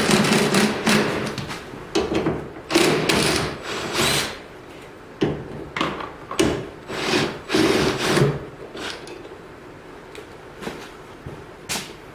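A power tool running in short bursts, backing out the bolts of a car's hood hinge; the bursts come close together for about eight seconds, then it turns quieter with a few sharp clicks.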